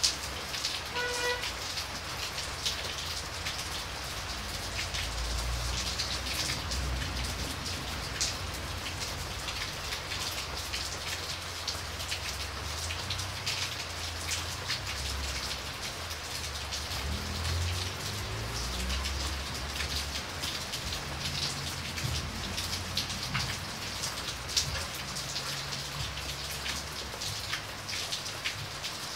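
Steady rain falling, a dense hiss of many separate drop hits. A short high tone comes about a second in.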